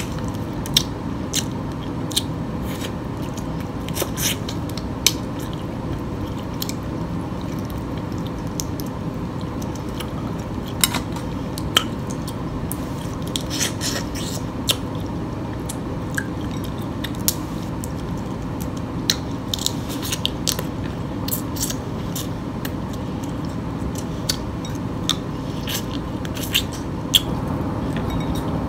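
Chewing crab meat, with scattered sharp clicks and crackles of blue crab shell being picked apart by hand. A steady low hum runs underneath.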